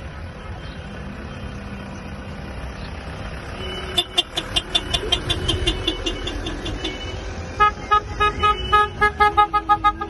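Cars in a slow convoy honking their horns in quick repeated beeps, starting about four seconds in, over the low rumble of engines and tyres. A second, lower-pitched horn takes over near the end, beeping in a fast rhythm of about four honks a second.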